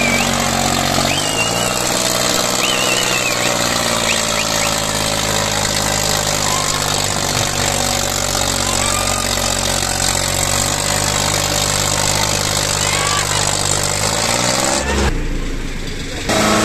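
Tractor diesel engine running steadily, its pitch shifting about a second in and climbing again near the end, with a few shrill whistles near the start.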